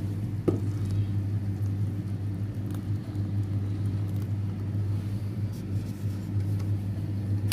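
A steady low electrical hum with a single sharp click about half a second in.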